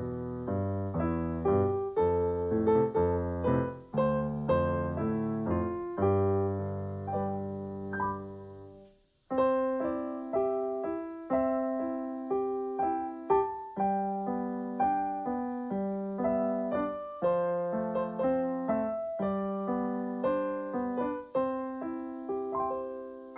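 Piano playing: separate struck notes ringing and fading, with a full bass for the first few bars. It stops briefly about nine seconds in, then resumes with a lighter, higher passage.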